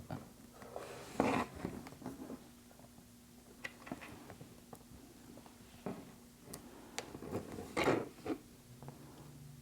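Scattered small clicks, taps and a couple of brief scrapes from handling small parts and tools while taking apart an iPhone.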